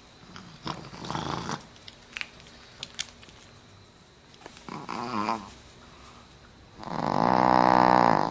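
Brussels Griffon snoring in her sleep: three rasping snore breaths, the last one longer and the loudest. The snoring fits a short-nosed breed.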